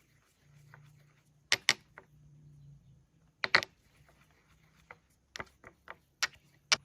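A series of sharp knocks and clicks at an uneven pace: two close pairs, then about six single knocks.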